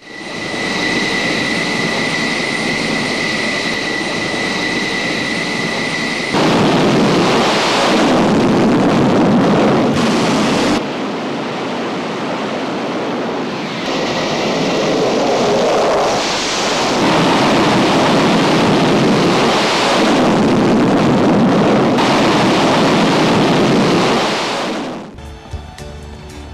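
Military aircraft engine noise: a steady high turbine whine over the first six seconds, then loud jet engine noise that changes abruptly several times and falls away near the end. Music plays underneath.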